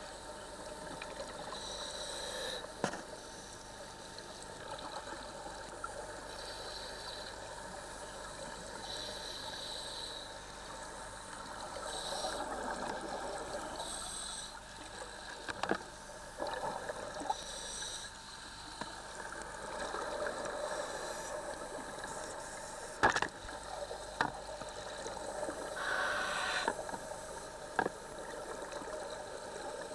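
Underwater scuba ambience: divers' exhaled bubbles from their regulators gurgling and gushing in repeated bursts over a steady hiss, with a few sharp knocks, the loudest about 23 seconds in.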